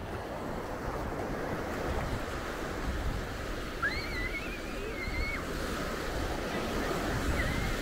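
Small waves breaking and washing up on a sandy shore in a steady rush. About four seconds in, a high, wavering call rings out for about a second and a half, with a shorter one near the end.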